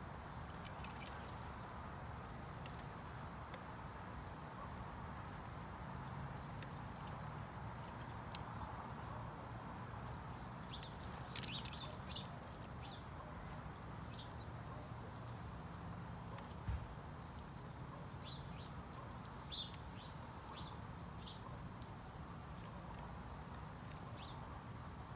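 A steady, high-pitched, pulsing insect trill runs on without a break. Four sharp, short, loud high sounds stand out above it, about 11, 13, 18 and 25 seconds in.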